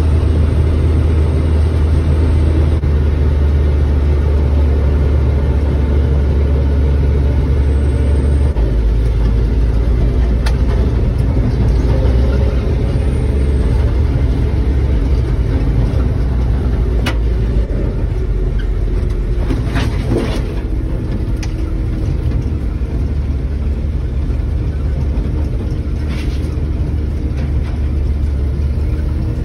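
A 1960 Dodge D100 Sweptline pickup driving, heard from inside the cab: the engine drones steadily under way along with road noise. Its low engine note drops a little about eight seconds in, and a few light rattles sound now and then.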